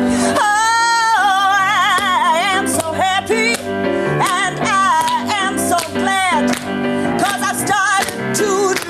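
Gospel-style piano accompaniment with a solo voice singing long, wavering runs over it.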